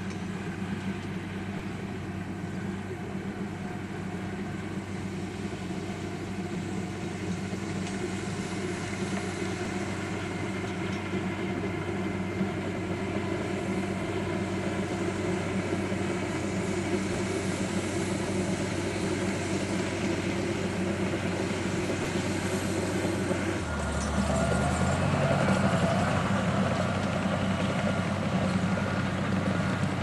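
Crawler bulldozer's diesel engine running steadily while it works soil with its blade, growing gradually louder. About three-quarters of the way through the sound changes, with a deeper engine tone coming in.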